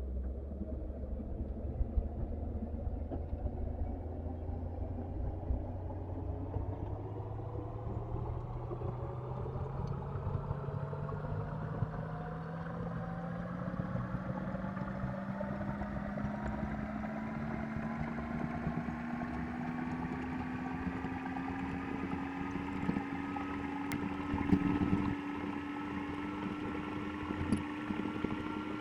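Komatsu excavator's diesel engine running, its pitch climbing slowly and steadily, with a few light knocks near the end.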